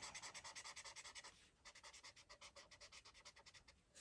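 Marker tip scribbling back and forth on paper in quick, even strokes, about six a second, as a colouring area is gone over and smoothed. Faint, with a short break just over a second in before the strokes resume more lightly.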